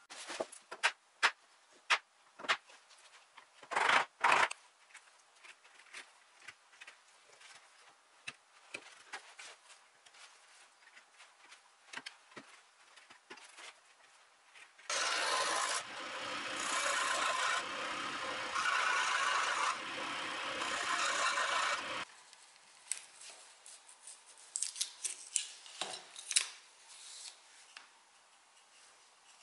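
Flat chisel scraping over a carved wooden ornament, with a steady scraping of about seven seconds in the middle. Before and after it come scattered clicks and knocks of wooden pieces being handled.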